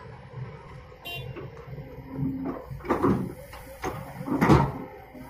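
Kobelco SK210 hydraulic excavator working: its diesel engine runs steadily while the steel bucket knocks and scrapes as it swings down and digs into wet mud, several clunks from about two seconds in and the loudest thump about four and a half seconds in.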